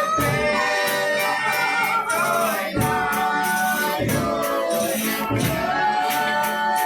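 Folia de Reis troupe singing a devotional song in sustained voices, over shaken jingles and percussion strikes about once a second.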